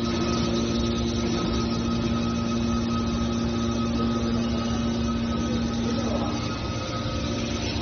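Hydraulic scrap metal baler running, a steady machine hum from its motor and pump that eases slightly near the end.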